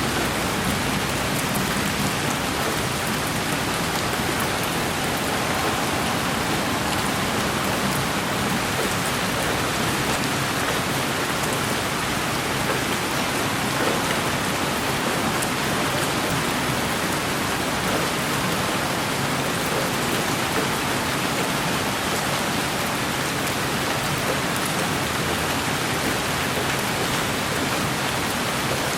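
Steady rainfall: an even, unbroken hiss of rain on a surface, with faint scattered drop ticks.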